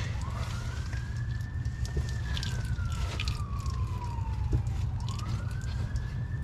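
Emergency-vehicle siren wailing: a single tone rises for about two seconds, falls slowly, then rises again near the end, over a steady low rumble.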